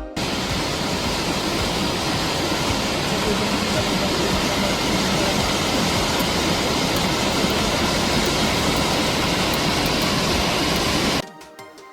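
Waterfall making a loud, steady rushing noise that cuts off abruptly near the end, where music comes back in.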